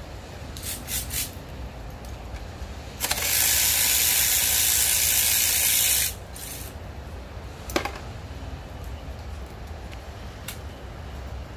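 A steady spraying hiss that starts about three seconds in and lasts about three seconds. There are a few light metallic clicks of hand tools before it and one sharp click after it.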